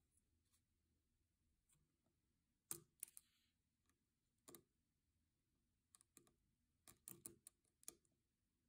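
Faint, sparse small plastic clicks and taps of a precision screwdriver tip prying at the clear plastic scissor hinge under a removed key on a Logitech keyboard, about a dozen in all and bunching up near the end, with a brief scrape about three seconds in.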